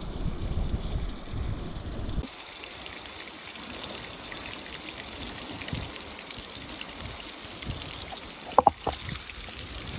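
Fish frying in hot oil: a steady sizzle with fine crackle. A low rumble covers the first two seconds and cuts off abruptly. Two sharp clinks in quick succession come about eight and a half seconds in.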